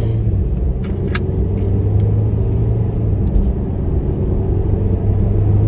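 Car cabin noise while driving: a steady low hum of engine and road noise, with a few faint light clicks.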